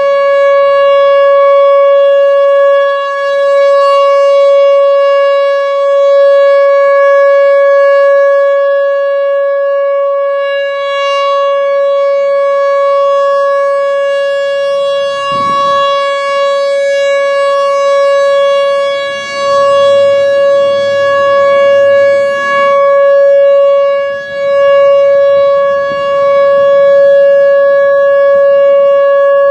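Whelen Vortex R4 outdoor warning siren sounding a steady alert tone: one unbroken pitch with a rich set of overtones, its loudness swelling and dipping slightly every few seconds.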